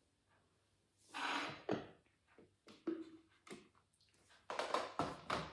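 Kitchen handling sounds: a brief rustle and knocks from a wooden salt box, then clatters near the end as the Thermomix's plastic lid is unlocked and lifted off its steel mixing bowl.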